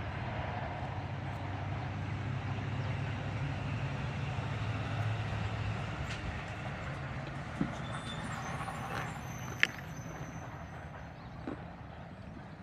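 Heavy truck passing on a nearby road: a low engine rumble with road noise that fades away after about six seconds. A few sharp clicks follow.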